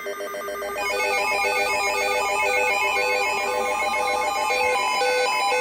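A bright electronic melody of quick, short, bell-like notes at many pitches, like a phone ringtone, growing fuller about a second in.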